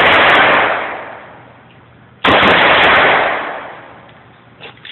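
Glock 32C .357 SIG pistol firing twice, about two seconds apart; each firing is a quick string of sharp cracks with a long echoing decay. The pistol is doubling, firing more than once per trigger pull, a fault it has shown before and that a factory slide plate did not cure.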